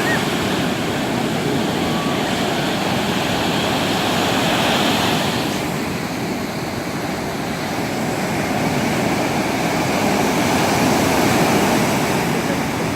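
Rough sea surf breaking and washing in, a steady rushing noise that swells twice as waves come in.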